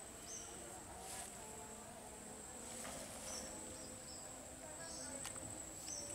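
Insects droning on one steady high pitch, with short high chirps every second or so.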